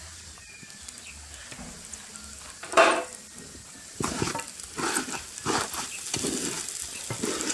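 Rice frying in a pot with a faint sizzle. There is a single loud clatter almost three seconds in, then repeated scraping strokes of a spoon stirring through the pot.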